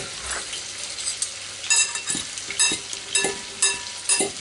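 Utensils tossing salad in a ceramic bowl, clinking against the bowl about six times, roughly twice a second, from about a second and a half in. Each clink leaves a short ringing tone from the bowl.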